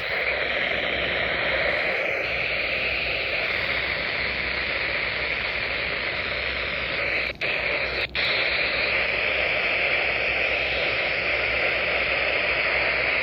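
Weather radio receiver giving a steady static hiss with no voice coming through. The hiss drops out briefly twice, a little past the middle.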